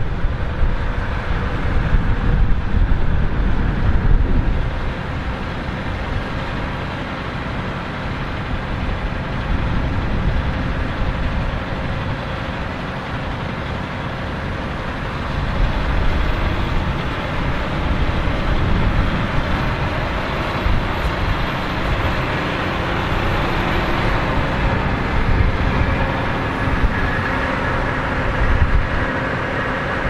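John Deere 6215R tractor's six-cylinder diesel engine running steadily alongside a Dewulf RQ2060 potato harvester's machinery, a continuous dense mechanical din with a low rumble.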